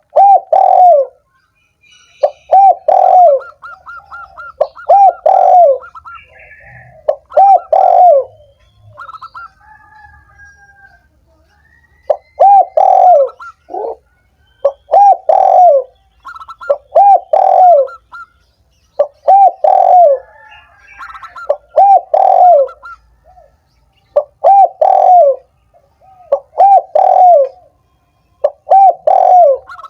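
Spotted doves cooing: phrases of low, arched coos repeated about every two seconds, with fainter higher chirps in between.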